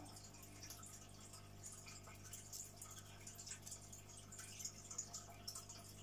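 Aquarium air stone bubbling: a faint, irregular patter of small pops and drips as bubbles break at the water surface, over a steady low hum.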